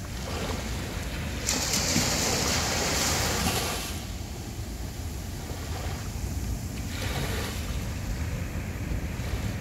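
Sea waves breaking on a beach over a steady low rumble of surf. One wave crashes loudly about a second and a half in and washes for a couple of seconds. A smaller wave washes in near the end.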